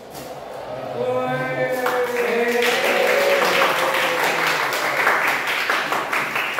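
A roomful of students clapping and cheering, with voices calling out over the applause. The voices start about a second in and the clapping joins about a second later.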